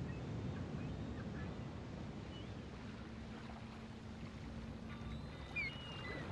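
Low wind rumble on the microphone on an open ship's deck, with a faint low hum through the middle and a few short high chirps near the end.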